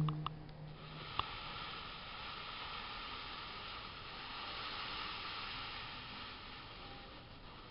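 Steady sizzling hiss of the model volcano's erupting flame as it flares up at the crater. It starts about a second in with a single sharp pop, swells, and fades near the end.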